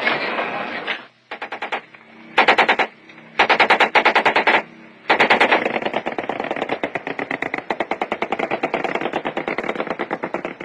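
Mounted machine gun firing in bursts: three short bursts, then one long run of fire lasting over five seconds.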